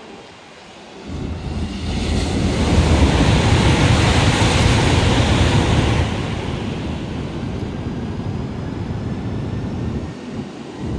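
Rushing rumble of a high-speed train moving along the platform, with wind buffeting the microphone. It comes in suddenly about a second in, is loudest a few seconds later and then eases to a steadier rush.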